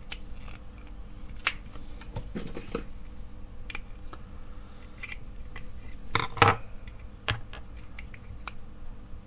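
Small clicks and scrapes of a clear plastic fidget spinner case being handled and worked at with a small screwdriver. A louder pair of clicks comes about six seconds in.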